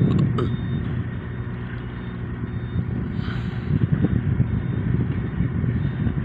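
A steady low engine rumble, with a few faint clicks just after the start.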